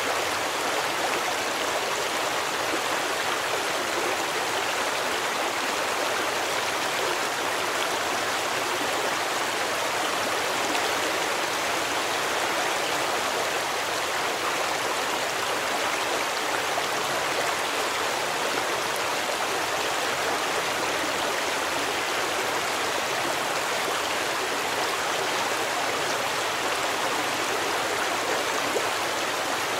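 Stream water running, a steady, unbroken rush with no pauses or separate events.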